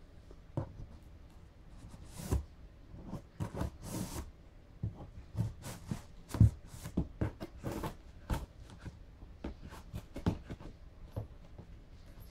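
Cardboard shipping box being cut open and unpacked by hand: an irregular run of scrapes, rustles and knocks from the knife, the cardboard and the packing inside.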